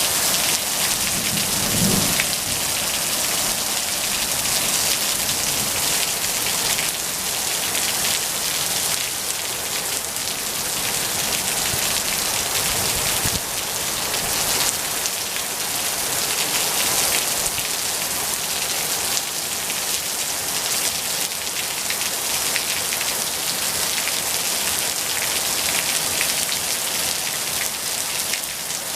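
Steady rain falling, a dense even hiss of drops on surfaces, with a brief low thump about two seconds in.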